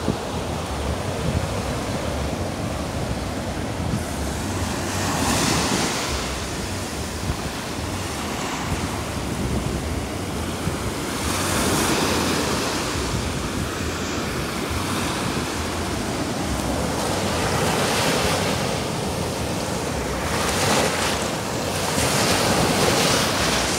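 Small sea waves breaking at the water's edge and washing up over sand, the surf swelling louder every few seconds, with wind buffeting the microphone.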